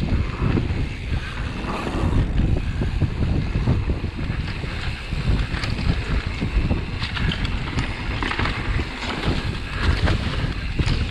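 Heavy wind buffeting on the microphone while a mountain bike rides fast down a dirt flow trail, with a steady low rumble and many small knocks from the tyres and bike over the ground.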